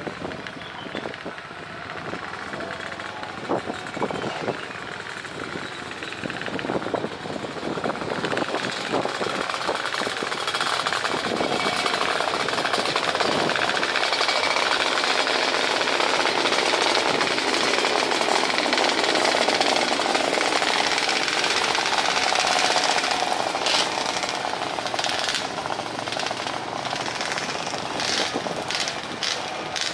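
Twin-engine jet airliner landing: its engine noise swells over several seconds, stays loud through touchdown and rollout, then eases off. A rattling clatter sounds over it at the start and again near the end.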